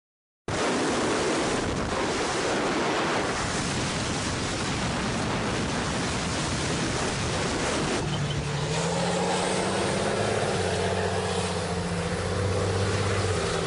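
After a brief silence, wind rushes over the microphone with the noise of an armoured vehicle driving fast down a road. About eight seconds in, after a cut, a tank's engine runs with a steady low hum.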